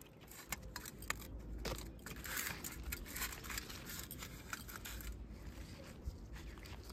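Faint scattered clicks, crackles and rustles of small handling noises, over a low steady rumble.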